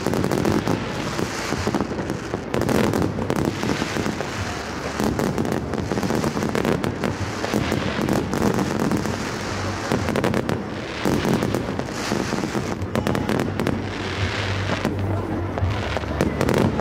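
Fireworks display: aerial shells bursting in a dense, almost unbroken run of bangs and crackling.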